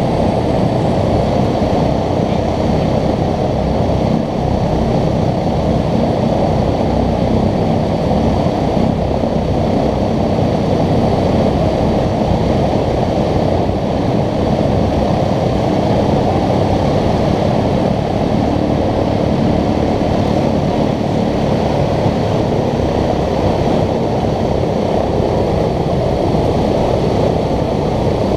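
A B-17 Flying Fortress's four Wright R-1820 Cyclone radial engines running steadily at low power on the ground, a loud, even drone.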